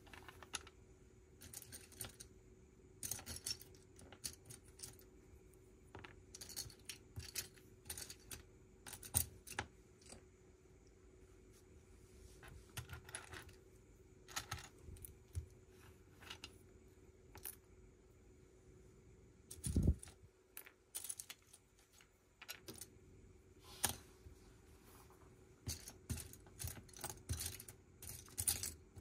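Plastic Lego bricks being handled and snapped together: irregular light clicks and clatters of loose pieces, with a heavier dull thump about twenty seconds in, over a faint steady hum.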